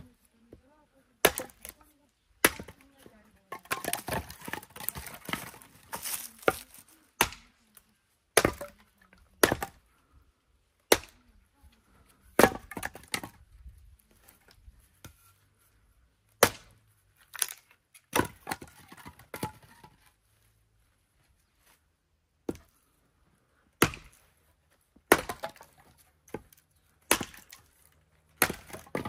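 Axe splitting firewood: about twenty sharp chops at an uneven pace, one every second or two, with lighter clattering between some of the strokes.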